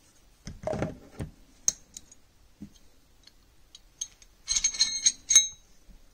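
Small metal pistol parts handled: a Glock 35 slide and its recoil spring assembly. A dull knock about half a second in and a few light clicks, then a quick run of sharp, ringing metallic clicks and clinks between four and a half and five and a half seconds, the last the loudest, as the recoil spring assembly comes out of the slide.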